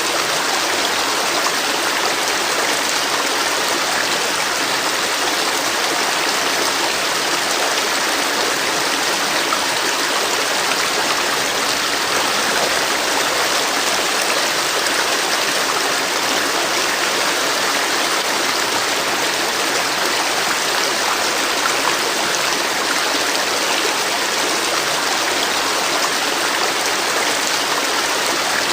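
A river flowing in a steady rushing wash of water over rocks, even and unbroken.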